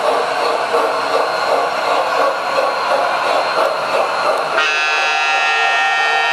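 Standard Gauge tinplate toy trains running on metal track, a steady rolling rattle. About two-thirds of the way through, the MTH #10 electric locomotive comes by and a buzzy electronic horn starts and holds.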